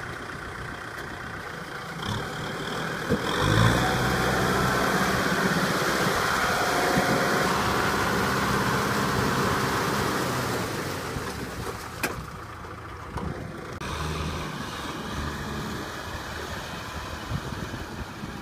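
Kubota tractor's diesel engine running steadily as it drives a rear rotary tiller through wet paddy mud. It gets louder a few seconds in and drops back to a lower level after about twelve seconds.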